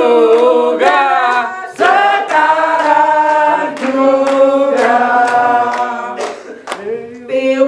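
People singing a birthday song, a lead voice through a microphone holding long notes, with a few hand claps.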